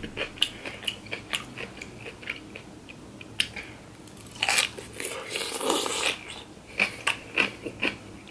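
Close-up crunching of a pickle slice being bitten and chewed: a loud, crisp bite about four and a half seconds in, followed by a run of chewing crunches. Lighter clicks come in the first few seconds.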